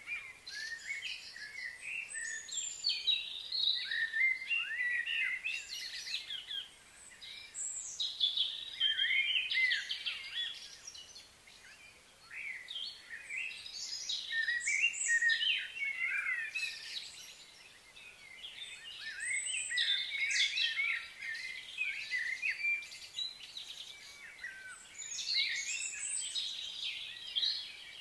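Wild birds chirping and singing, many short overlapping high calls that come in bouts, swelling and fading every few seconds.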